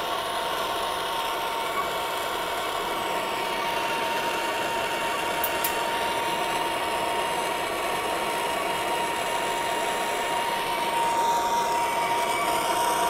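Air-acetylene B-tank torch burning with a steady rushing hiss and a thin steady tone, as it heats a copper pipe joint for soft soldering. The hiss gets slightly louder near the end.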